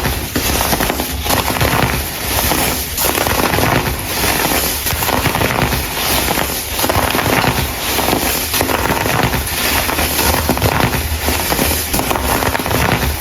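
Dyed baking soda crumble being crushed, a dense crackling crunch that surges and dips every second or so as it is squeezed.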